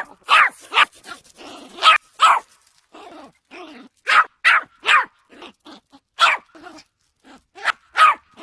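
Dog barking repeatedly at a drone: about fifteen short, sharp barks in uneven groups of two or three, with short pauses between.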